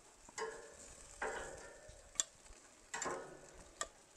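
Metal grill tongs clinking and clacking against the grill grate and a plate as barbecued chicken drumsticks are moved off a gas grill: a few separate clatters, each fading quickly, and a couple of short sharp clicks.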